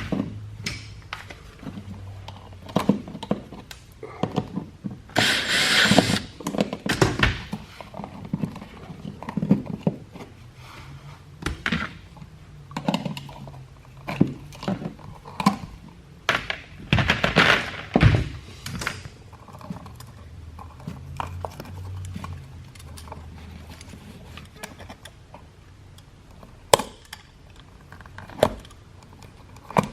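Hand tools working on a wall outlet and its wiring: scattered clicks, taps and knocks throughout, with two longer rasping sounds about five and seventeen seconds in.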